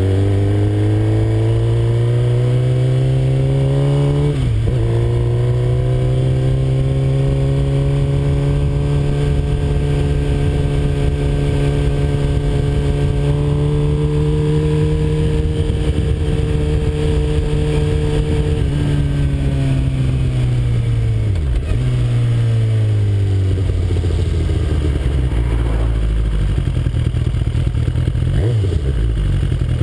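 2007 Suzuki GSX-R's inline-four engine heard from on the bike, revs rising as it pulls away, with a quick dip at a gear change about four seconds in. The revs then climb slowly and hold steady while cruising. Past the middle they fall as the bike slows, with short dips twice in the last third.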